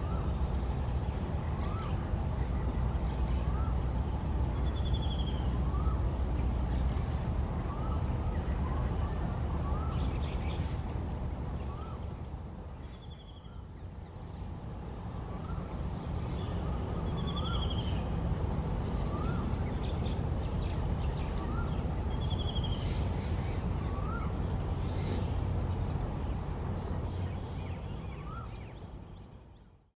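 Outdoor pond ambience: a steady low rumble with birds calling over it, short rising notes every second or two and now and then a higher, falling trill. It fades out at the end.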